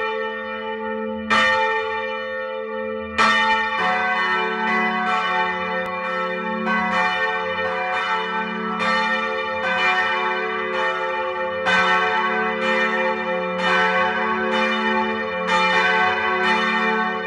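Church bells ringing in a peal from the tower, each stroke followed by a long hum. A single bell strikes at first, and a second, lower-pitched bell joins a few seconds in; from then on the strokes come in a steady stream, a little under a second apart.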